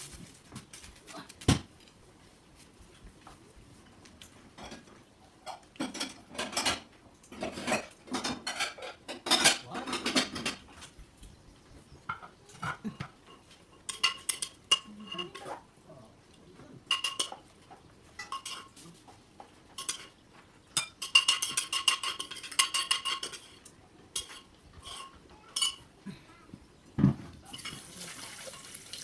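Irregular metal clinking and clattering, some strikes leaving a short ringing tone, with a dense run of rapid ringing clinks a little past the middle.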